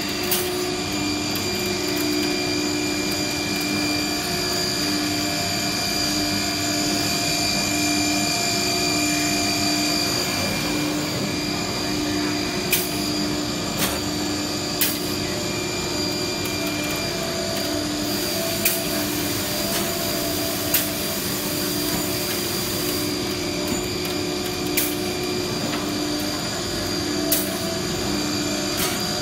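Three-spindle CNC nesting router working a melamine-faced board: a steady machine whine and extraction rush with fixed tones, broken by sharp clicks every second or few seconds through the second half. A stronger hiss rises for a few seconds past the middle.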